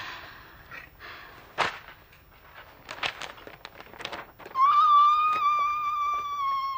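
Paper rustling and crackling as a sheet is handled, then, a bit over halfway through, a man's long, high-pitched shriek held on one steady pitch. The shriek is the loudest sound.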